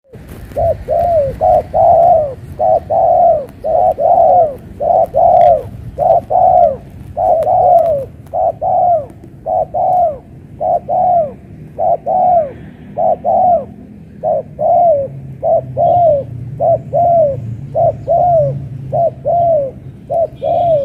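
Spotted dove cooing loudly and over and over: short arched notes, mostly in twos and threes, with brief pauses between phrases.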